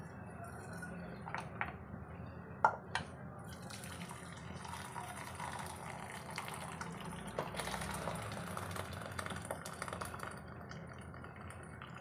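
Spatula stirring thin cooked dal in a steel pressure cooker: liquid sloshing and swishing, with a few sharp knocks against the pot in the first few seconds, the loudest about two and a half seconds in.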